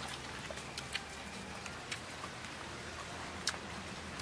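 Mouth sounds of people eating: scattered sharp smacking clicks of chewing, about one a second, over a steady background hiss.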